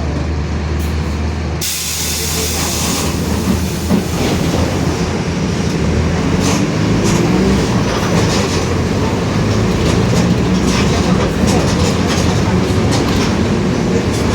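Mercedes-Benz OF-1721 bus's four-cylinder diesel engine pulling under load, its pitch and level rising as the bus gathers speed, with the differential growling. A short hiss of air about two seconds in, and scattered rattles.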